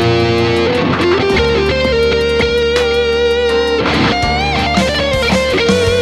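Electric guitar playing a lead line of held, wavering notes with vibrato, with a rising string bend about four seconds in. A steady low bass part and regular beats sound underneath.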